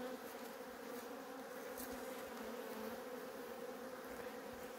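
Honey bees buzzing in a steady, even hum over the top bars of an opened hive.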